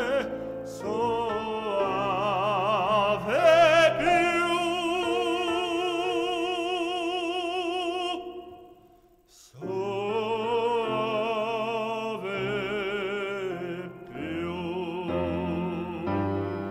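Tenor voice singing an Italian song in operatic style with wide vibrato over accompaniment. A long held note fades away about eight seconds in, and vibrato singing resumes about a second and a half later.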